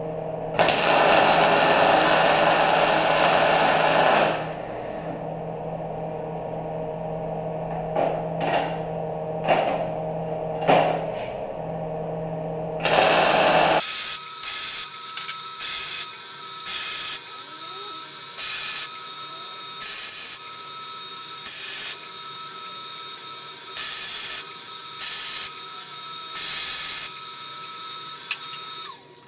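MIG welder welding steel parts held in a fixture: one weld of about four seconds near the start, then a series of short crackling tack welds about a second each, with a faint steady whine between them.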